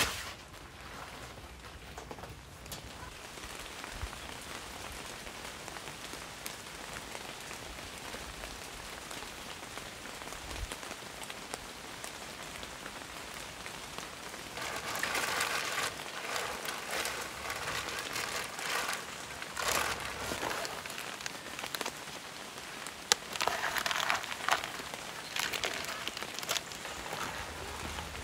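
Rain falling steadily, growing heavier in two spells in the second half, with a few sharp drips.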